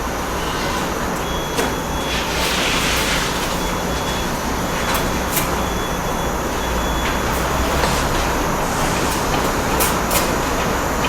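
Scattered sharp taps and clicks of bricklaying work, irregular and a few seconds apart, over a steady low background rumble.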